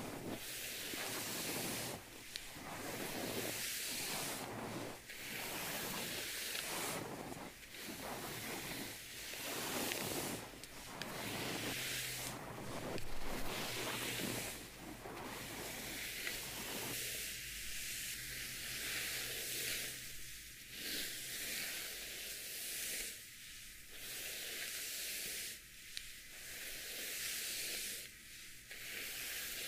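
Bristles of a plastic paddle hairbrush swept over the microphone in repeated scratchy strokes. The strokes come about once a second at first and slow to one every two or three seconds later on.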